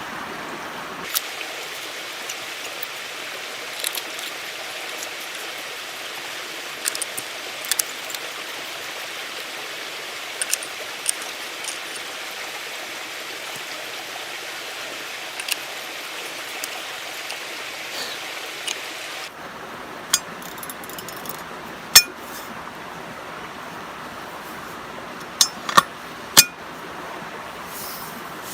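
Scattered sharp metal clicks and clinks as the sections of a multifunction survival shovel are fitted and screwed together, over a steady rushing background. The clicks are loudest three times near the end.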